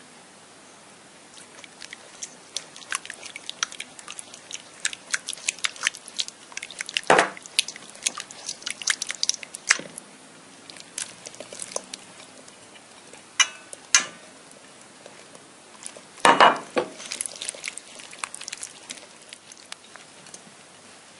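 Silicone spatula stirring grated cucumber with oil and vinegar in a stainless steel bowl: a run of quick clicks and scrapes, with several louder knocks of the spatula against the bowl.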